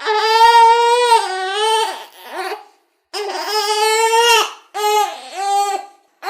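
A one-month-old baby crying: a long wail of about two seconds, a short one, a brief pause, then three more wails, the last two short, with quick breaths between them.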